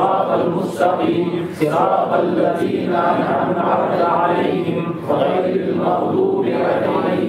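Men's voices chanting a devotional recitation together in sung phrases.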